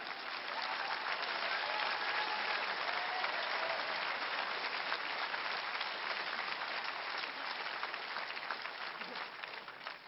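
Large audience applauding, swelling over the first second or two, holding steady, then dying away near the end.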